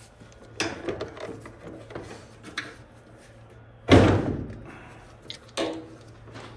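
Knocks and clunks from the dryer's cabinet panels being handled during disassembly, with one loud bang about four seconds in that rings on briefly.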